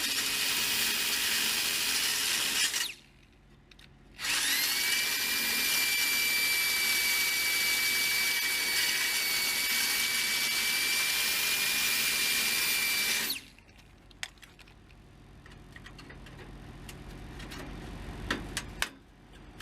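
Electric drill with a small cutoff wheel grinding through an old cracked exhaust flex pipe to remove it. It cuts for about three seconds and stops for about a second. It then spins back up with a steady high whine and cuts for about nine more seconds before stopping. Faint clicks and rattles follow.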